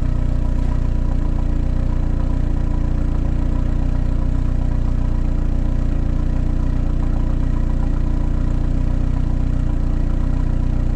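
Ford Focus ST engine idling steadily.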